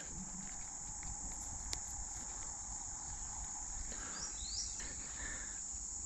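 Steady high-pitched trilling of insects, with a faint click and a couple of brief chirps about four seconds in.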